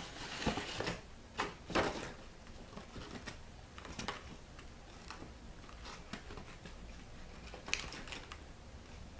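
Paper and card being handled and pressed together: light rustling and small sharp clicks and taps, the loudest a few in the first two seconds and another near the end.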